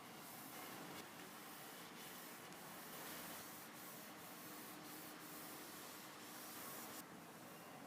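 Faint, steady hand sanding: abrasive rubbing over a workpiece, with a few light clicks.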